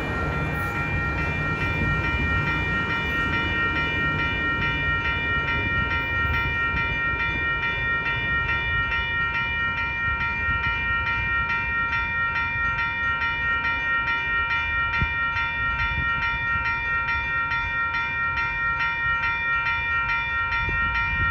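Railroad grade-crossing bell ringing with rapid, even strokes, over the low rumble of a passenger train moving away.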